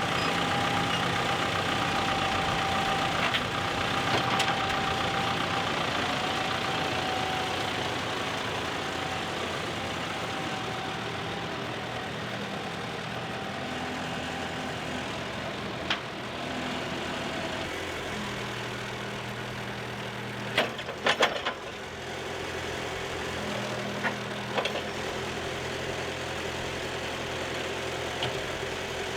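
Wood-Mizer portable sawmill's engine running steadily, with a higher whine through the first half and a few sharp knocks about two-thirds of the way through.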